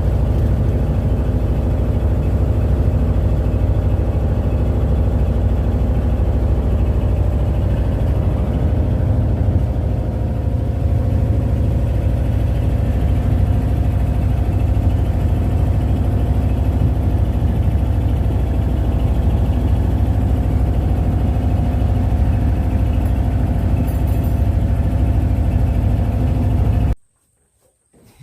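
Boat engine running steadily, a loud low drone with a few steady tones above it, cutting off suddenly near the end.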